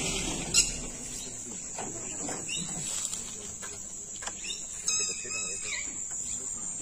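Outdoor ambience: a steady high-pitched insect drone, low voices of onlookers, and a few short bird calls about five seconds in.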